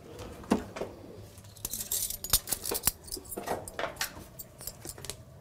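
Metal spoons and kitchen utensils clinking and clattering, with light knocks of dishes and jars on a counter: a scatter of short clicks, busiest around two seconds in.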